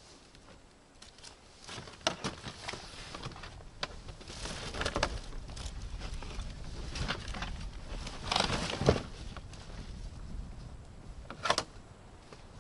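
Scattered knocks, rustles and clatter of gear being handled and packed into a plastic snow sled, with the loudest clunks about eight and a half seconds in and again near the end.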